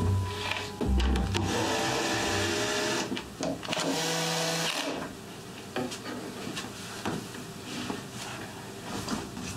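Cordless drill driving screws into wood through metal hardware, its motor whirring in two runs of a second or so each, about 1.5 s and 3.5 s in, over background music.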